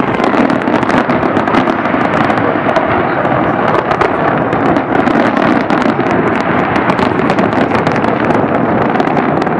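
Large aerial fireworks display: a dense, continuous barrage of bangs and crackling shells bursting over one another, with no break.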